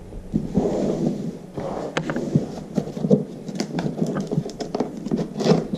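Product packaging being handled and opened: irregular rustling with scattered clicks and knocks.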